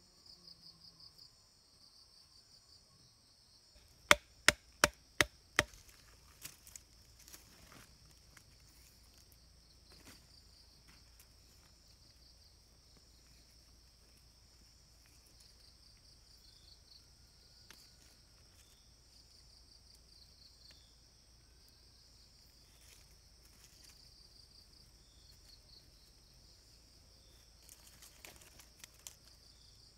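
Steady insect chorus with five sharp chops about four seconds in, coming about three a second: a blade striking wood. Scattered lighter knocks follow, with a few more near the end.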